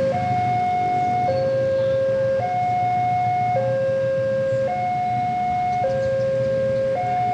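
Railway level-crossing warning alarm sounding a steady two-tone signal, a higher and a lower electronic tone swapping about every second, the signal that a train is approaching the crossing. A steady low rumble runs beneath it.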